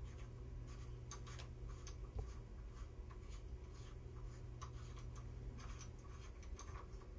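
Faint, irregular light clicks and scrapes of metal on metal as a kitchen faucet's retainer nut is unscrewed with an adjustable wrench, over a low steady hum.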